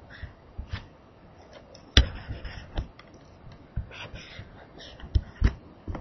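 A stylus tapping and clicking on a tablet screen while a circuit diagram is drawn. The taps are scattered and irregular, and the sharpest comes about two seconds in.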